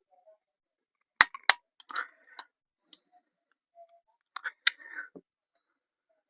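Sharp metallic clicks and clinks of hand tools on engine bolts: two clicks about a second in, a short rattle, then another cluster of clicks and rattling near the end.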